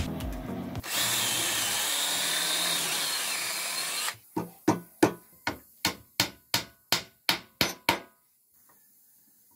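Power drill boring into the wooden joint of a table frame for about three seconds. Then about eleven hammer blows, roughly three a second, drive a wooden dowel into the drilled joint.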